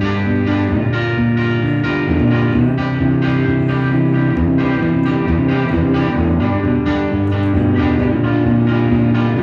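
Live guitar playing: chords strummed in a steady rhythm, about two strokes a second, with no singing.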